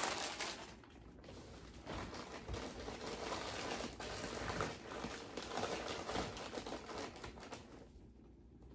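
Crinkling snack bags and small irregular knocks as packaged snacks are handled and moved on a closet shelf, dying away near the end.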